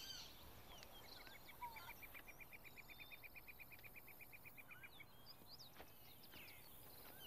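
Quiet outdoor ambience of faint, scattered bird chirps, with a rapid high trill of evenly spaced pips, about eight a second, running for a few seconds near the start.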